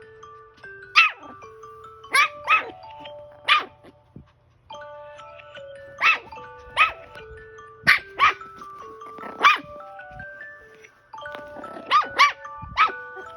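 Bichon Frise puppy barking about a dozen times in short, sharp yaps, some in quick twos and threes, at an alarm's chiming melody. The melody plays underneath and breaks off briefly twice.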